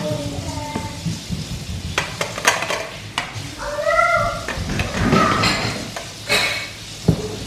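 Wooden spoon knocking and scraping in a stainless steel pot while broccoli is scooped out and served, with repeated clicks and clunks. A short pitched cry, rising then falling, sounds about four seconds in.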